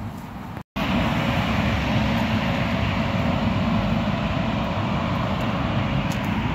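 Steady outdoor rumble of nearby road traffic mixed with wind on the microphone. It drops out for an instant less than a second in and comes back slightly louder.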